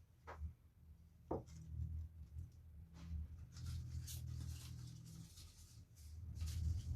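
Soft handling noises in a small room: a couple of light clicks, then faint scratchy rustling, over a steady low hum.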